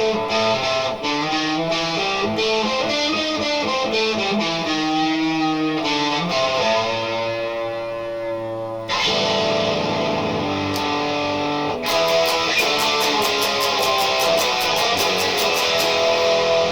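Electric guitar with a P90 pickup played through an overdriven, distorted tone: a picked riff of changing notes, then a chord left to ring. Fresh strummed chords come in near the middle, and fast, even strumming follows in the last few seconds.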